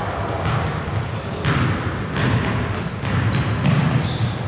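Basketball game on a hardwood court: a ball bouncing in several thuds, with sneakers squeaking in short, high chirps.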